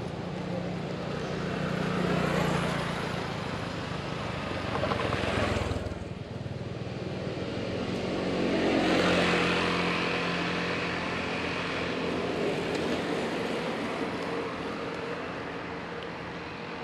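Motor vehicles passing on the road one after another, each swelling and fading away; the loudest pass comes about nine seconds in.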